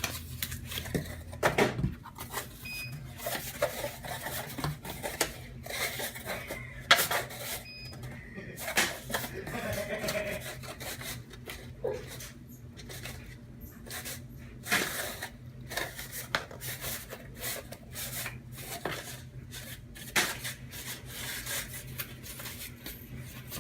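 Cardboard card-box dividers being folded and creased by hand: irregular crinkles, snaps and taps, over a low steady hum.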